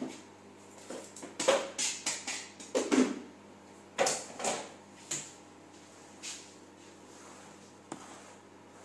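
Kitchen things being cleared away: a run of clatters, knocks and clunks, densest in the first five seconds, then a few softer knocks and a single click near the end, over a faint steady hum.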